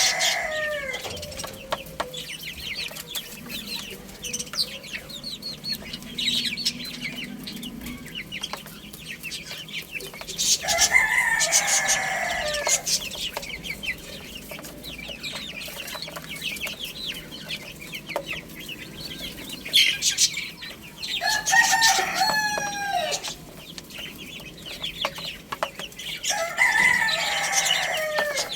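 Rooster crowing four times, each crow a drawn-out call that falls at the end, with chicks peeping and hens clucking in between.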